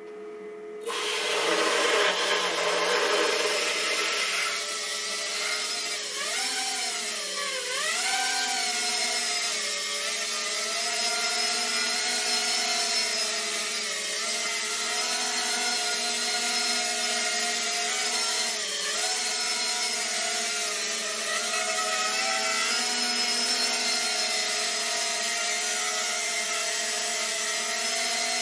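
Walkera Rodeo 110 quadcopter's brushless motors and propellers whining steadily as it hovers, the pitch wavering up and down as the throttle is corrected, with a few sharp dips and recoveries.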